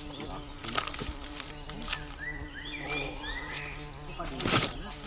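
Jungle ambience: insects keep up a steady high buzz and whine while footsteps crunch and brush through dry leaf litter and undergrowth. A run of short chirps comes about two to three seconds in, and a loud brush or bump near the end.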